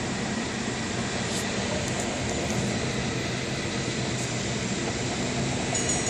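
Steady rumbling hum of San Francisco cable car line and street noise, with a few faint clicks.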